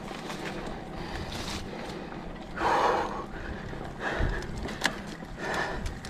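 Heavy breathing of a cyclist, three loud puffing exhales about a second and a half apart, over the rattling and clicking of a mountain bike rolling over a rough dirt trail.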